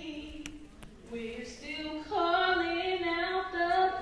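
A female voice singing long held notes, stepping between pitches, with a softer dip after the first note and a strong sustained note through the second half.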